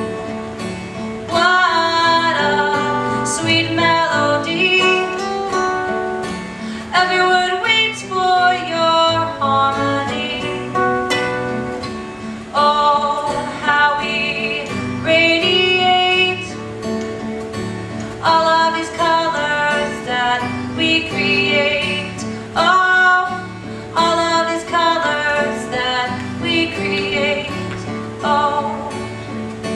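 A song played on strummed acoustic guitar, with a voice singing the melody over it.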